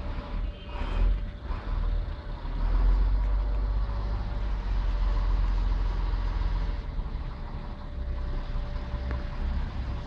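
Heavy truck's diesel engine idling steadily, a low rumble with a faint constant hum.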